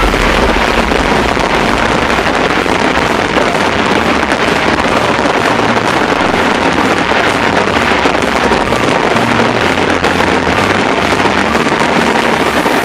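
Fireworks display going off densely: a loud, steady rush of many crackles run together.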